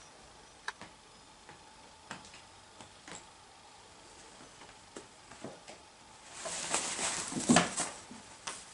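Sphynx kittens playing: light taps of paws on wooden floorboards, then about six seconds in a louder rustling scuffle of a couple of seconds as they tussle on a fabric play mat.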